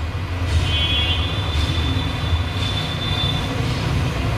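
Hot-air rework station blowing steadily with a low rush and a faint high whine that comes and goes, heating an eMMC chip to reflow its solder balls onto the phone board.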